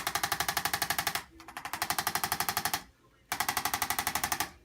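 Handheld chiropractic adjusting instrument clicking rapidly against the low back, at about a dozen taps a second, in three bursts of about a second each with short pauses between.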